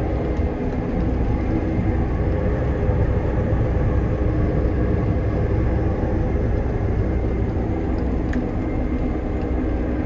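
Fendt Ideal combine running steadily while harvesting canola: a constant machine drone with a few steady hum tones.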